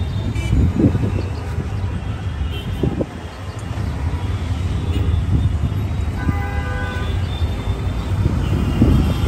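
Street traffic noise with a steady low rumble, and a vehicle horn honking briefly about six seconds in.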